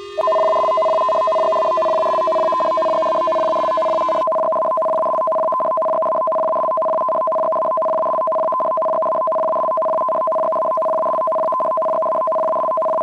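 Emergency alert attention signal: two steady tones sounding together without a break. For the first four seconds a lower tone with overtones sinks slowly in pitch underneath, then stops abruptly.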